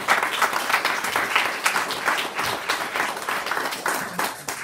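Applause from a small group of people, many hands clapping at once, thinning out near the end.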